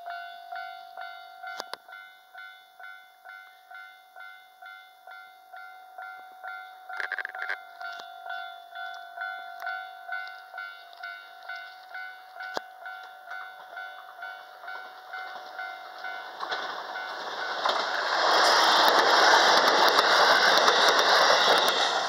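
Japanese level-crossing alarm ringing its repeated electronic clang, about two strikes a second, while the barriers are down. From about 16 seconds in, an electric train passes close by, loud, with wheel clicks over the rail joints, and its noise drowns out the alarm.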